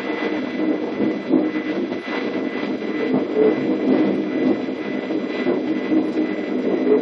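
DB class 420 electric multiple unit running, heard from its driver's cab: the motors and electrical equipment hum steadily with a constant high whine. Irregular clatter of the wheels on rails and points runs underneath.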